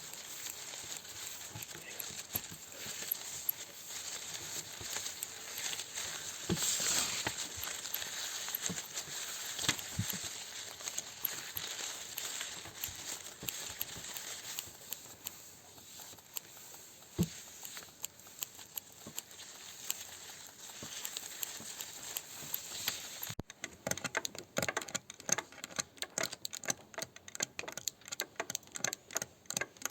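Classroom materials worked by hand to imitate nature sounds: a steady crackling, crinkling patter of many small taps and rustles. About 23 s in, it changes abruptly to a quicker, more rhythmic tapping.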